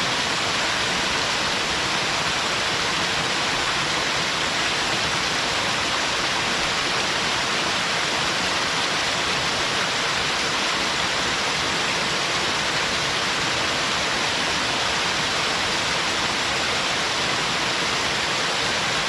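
Small mountain-stream waterfall: water falling and splashing in a steady, unchanging rush, brighter and hissier than it is deep.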